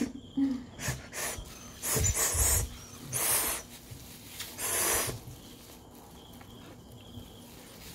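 A child sucking on a candy held to her lips, with a few loud breaths through the nose close to the microphone, each about half a second long, in the first five seconds.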